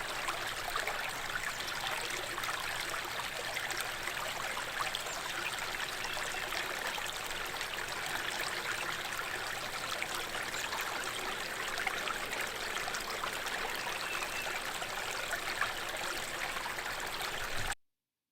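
Running water in a stream, a steady babbling rush that cuts off suddenly near the end.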